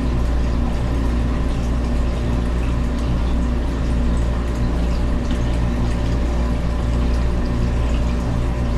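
Steady hum of aquarium pumps and filters, with water running through them.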